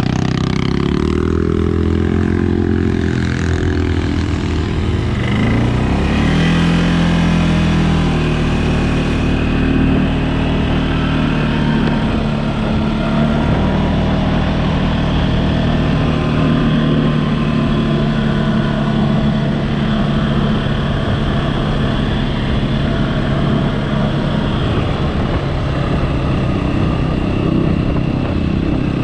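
CFMOTO ATV engine running under way. It revs up over the first few seconds, eases off, climbs again, then holds a fairly steady cruising pitch.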